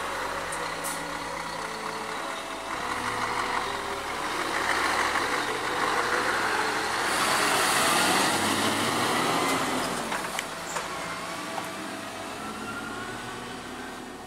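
Scania R500 V8 diesel truck driving past, its engine and tyre noise building to a peak about eight seconds in and then fading as it moves away.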